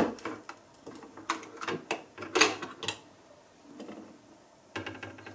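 Metal clicks and clacks of an LGA1150 CPU socket being opened by hand: the retention lever unhooked and swung up, the load plate flipped open and the processor lifted out. A string of sharp clicks, the loudest about two and a half seconds in and another near the end.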